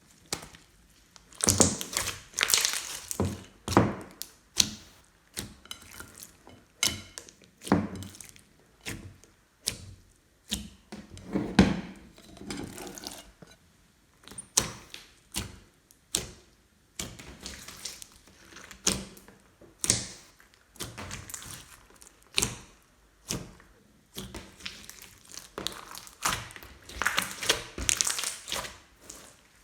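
Glossy slime being squeezed, folded and stretched by hand, giving irregular sticky pops and clicks, several a second, with short wet squelches.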